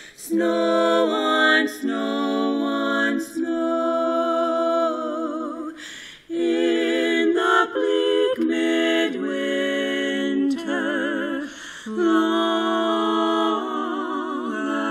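Three women singing in close harmony, long held notes with vibrato, in phrases broken by short breaths, the longest pause about six seconds in.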